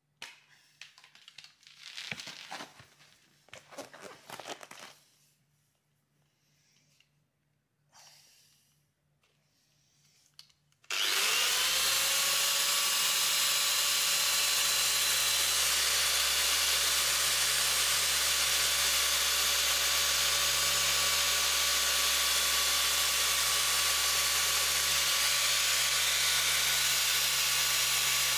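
Faint handling noises, then about eleven seconds in a rotary machine polisher starts up. Its motor whine rises quickly to a steady pitch and it runs at a constant speed while compounding the paint.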